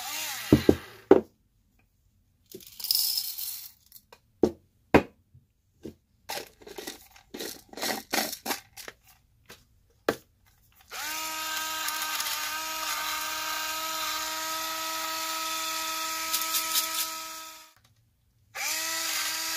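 Small battery electric pepper grinder's motor running with a steady whine while its ceramic burrs crunch through coffee beans. It starts about halfway through, stops about seven seconds later and starts again near the end. Before it, a scatter of clicks and knocks and a short rattle as the grinder is opened and refilled.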